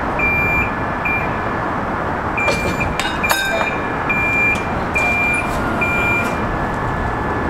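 Railcar mover's backup alarm beeping about once a second over the steady running of its engine, with a few sharp knocks around three seconds in.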